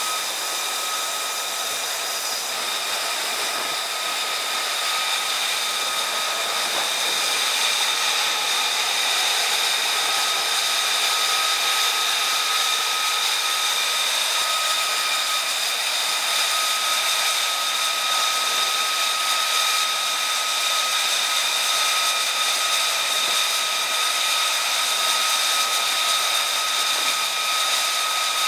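Steady high-pitched jet turbine whine with a hiss, from jet aircraft running on a carrier flight deck; it gets a little louder about a quarter of the way in.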